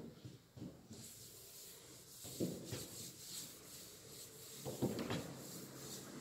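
Chalkboard duster wiping across a blackboard: a faint rubbing hiss in repeated strokes that starts about a second in, with a few light knocks.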